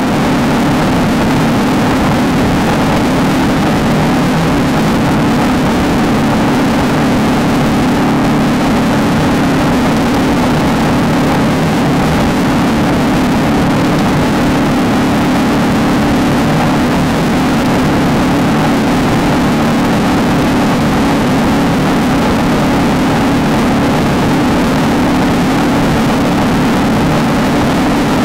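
Off-road race car engine running hard at steady revs, with a constant rush of noise on top, as heard riding along with the car.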